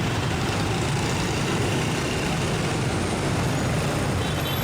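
Dense street traffic, mostly motorbikes, a steady buzzing and humming of many small engines together with no single vehicle standing out.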